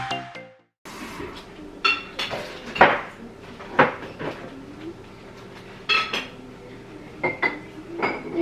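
Dishes and glassware clinking and knocking as they are handled and set down, a sharp clink every second or so.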